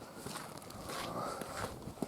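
Faint footsteps.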